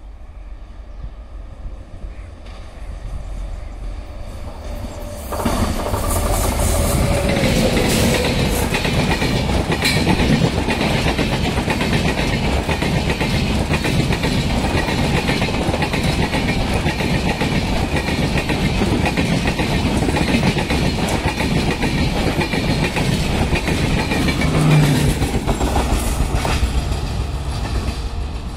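Express train of LHB coaches hauled by a WAP-7 electric locomotive passing at speed: a rumble builds as it approaches, jumps suddenly loud about five seconds in as it draws level, then runs as a steady loud rush of wheels on rail with rapid clickety-clack over the joints, easing off near the end.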